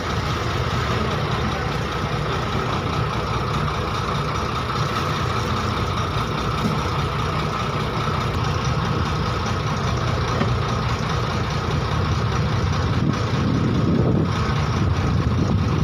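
Heavy engine running steadily, a low drone with a constant higher hum over it that does not change.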